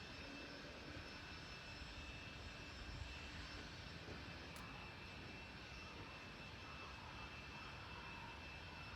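Faint, steady background noise with a thin, steady high whine running through it; no distinct event stands out.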